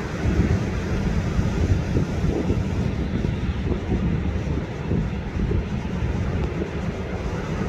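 Wind buffeting the microphone as a steady, uneven low rumble, over the wash of ocean surf.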